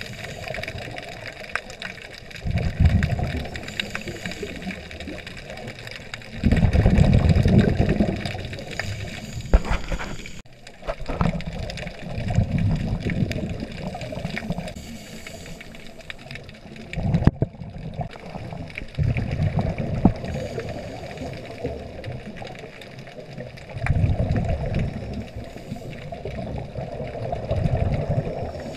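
Underwater sound of a scuba diver's exhaled bubbles leaving the regulator, loud bubbling bursts every few seconds over a steady rush of water against the camera.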